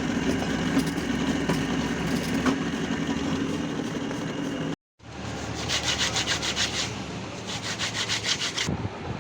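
Rapid back-and-forth scraping of a hand tool on metal or friction material, in two quick runs of strokes after a steady background hum that cuts off suddenly partway through.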